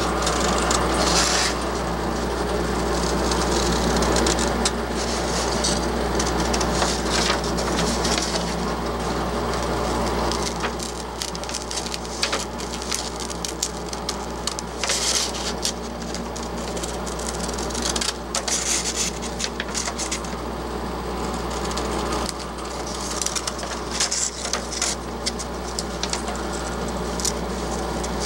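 Scroll saw running with a steady motor hum, its blade rasping through 1/4 inch plywood in short bursts.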